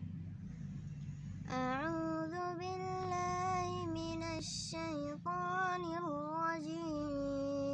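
A young girl's voice chanting the opening of a Quran recitation (tilawat) in long, drawn-out melodic phrases, beginning about a second and a half in. A low steady hum is heard before her voice starts.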